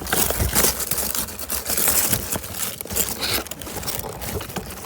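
Packaging being handled and opened: a dense run of rustles, scrapes and sharp clicks.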